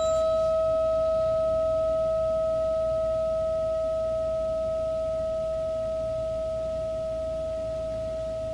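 A single struck metal tone ringing on steadily at one pitch and slowly fading over several seconds; brief high overtones die away within the first second.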